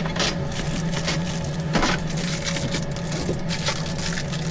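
Plastic clicks and snaps from a remote car key's shell being fitted and pressed together, with a louder crack a little under two seconds in.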